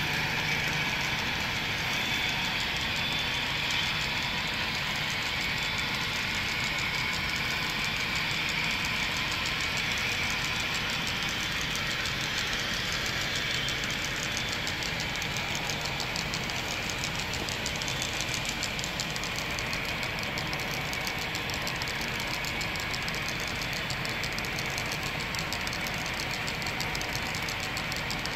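HO scale model coal train rolling past: a long string of coal hopper cars running steadily on the track, their metal wheels making a rapid, continuous clicking under a steady running noise.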